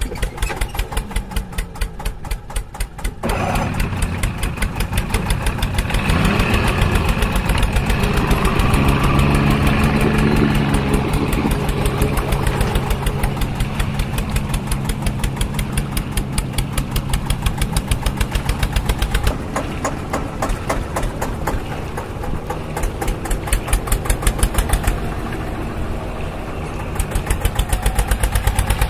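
Engine running with a fast, even chug. Its tone changes abruptly several times, and a steady low hum runs under it through the middle stretch.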